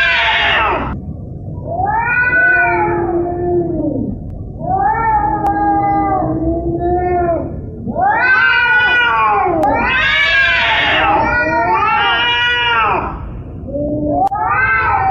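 A cat yowling: a run of about seven long drawn-out calls, each rising and then falling in pitch, with short gaps between them.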